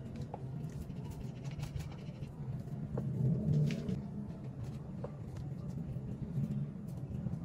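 Fingers spreading and pressing cooked rice onto a sheet of dried seaweed for gimbap on a plastic cutting board: scattered small crackles and taps over a low steady hum that swells briefly around the middle.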